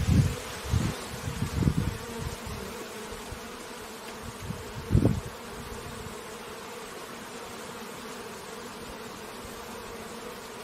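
Honeybees buzzing at a hive: a steady, even hum. A few low bumps break in during the first two seconds and once about five seconds in.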